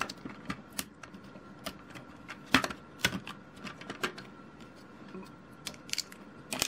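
Lego bricks clicking and snapping as plates and tiles are pried off a small Lego truck cab: irregular sharp clicks, the loudest about two and a half seconds in.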